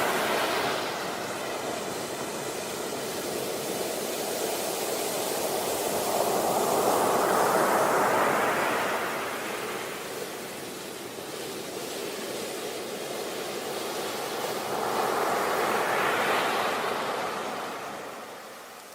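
Sea waves breaking and washing up a beach, the surf swelling and easing roughly every eight seconds, three times over, then dropping away near the end.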